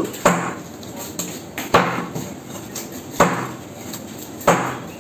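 A large knife chopping through a fish fillet into a wooden chopping block: four sharp chops about a second and a half apart, with lighter knocks between.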